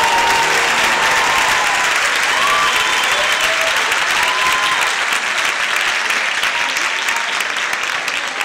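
Theatre audience applauding steadily, with a few shouts through the clapping, as the routine's music stops at the start.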